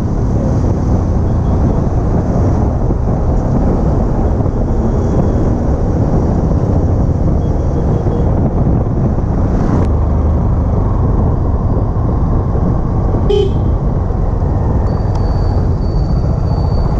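Steady road noise from a moving vehicle, heavy in the low end, with a short horn toot about 13 seconds in.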